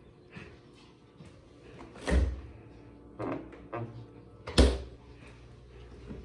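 Small refrigerator door being opened and shut: two dull thuds, about two seconds in and again about two and a half seconds later, with faint small clicks between.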